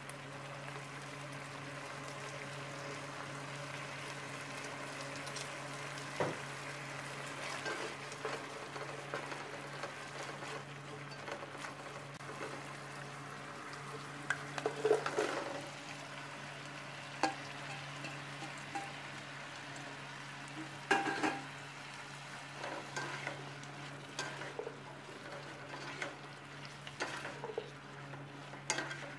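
Shrimp and garlic sizzling in hot oil in a pot, stirred with a slotted spatula that scrapes and taps against the pot, with louder bursts of scraping about 15 and 21 seconds in. A steady low hum runs underneath.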